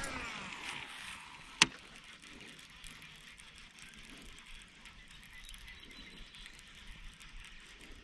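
Fishing reel at work: a falling whir at the very start as line pays out in a cast, one sharp click about a second and a half in, then steady faint ticking as the reel is cranked in.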